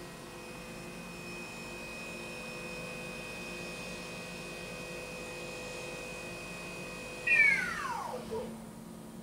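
Left main spindle of a Mori Seiki NZ-2000 CNC turning center running at 3,000 RPM with a steady high whine over a low hum. About seven seconds in, the spindle brakes to a stop: the whine jumps louder and falls quickly in pitch, leaving only the machine's low hum.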